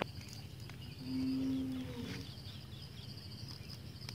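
A cow moos once, a single steady low call about a second long starting about a second in, over a steady high chirring of insects.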